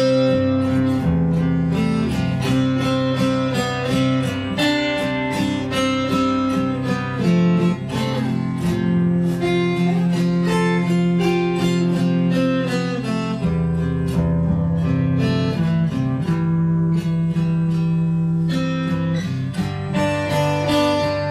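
Steel-string acoustic guitar played fingerstyle in an instrumental break: picked notes that change over sustained low notes.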